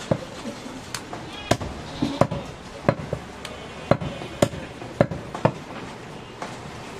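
Butcher's cleaver chopping goat meat: about ten sharp blows at an uneven pace, roughly one or two a second.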